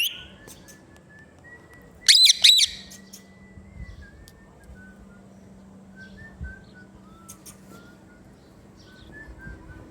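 Ringneck parrot calling: a loud rising whistle at the start, then two sharp, loud screeches about two seconds in, with faint short chirps through the rest.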